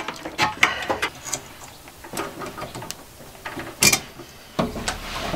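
Handling noise of stiff electrical wire and hand tools being worked into a steel breaker panel box: irregular clicks, scrapes and light metal knocks, with one sharper knock about four seconds in.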